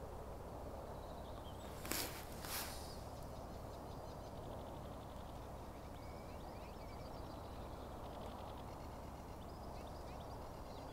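Quiet outdoor ambience with faint bird chirps, and two brief sharp noises about two seconds in, half a second apart.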